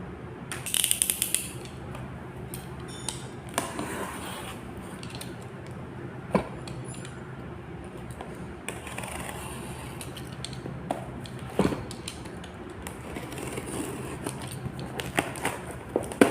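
A parcel being handled and opened: a burst of rustling packaging about a second in, then scattered light clicks and knocks from the packaging and items, over a steady low hum.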